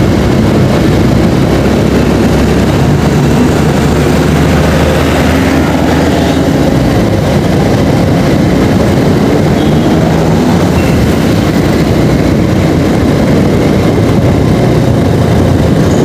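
A motorcycle riding at a steady speed, its engine running with a constant drone mixed with road and wind noise.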